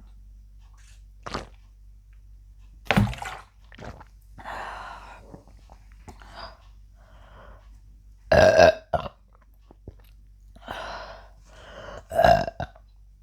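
A woman burping several times in a row, brought on by gulping carbonated Pepsi. There are three loud burps, the second and third long and clearly pitched, with quieter burps between them.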